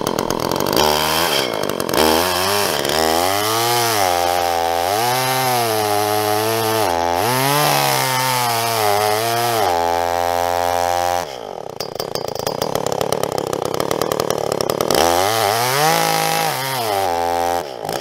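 Gas chainsaw cutting through a felled log, its engine pitch rising and sagging again and again as the chain works through the wood.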